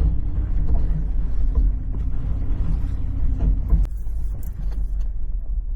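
Off-road SUV crawling over trail rocks: the engine runs low and steady, with a few short knocks and creaks from the vehicle scattered through it.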